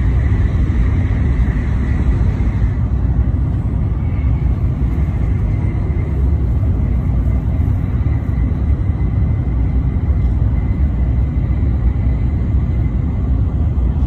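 Shinkansen bullet train running at speed, heard inside the passenger car: a steady low rumble with a faint high whine over it.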